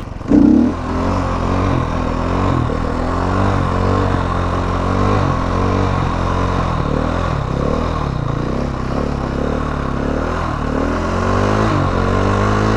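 Stunt motorcycle engine running under the rider's throttle, its revs rising and falling, with a brief loud burst about half a second in.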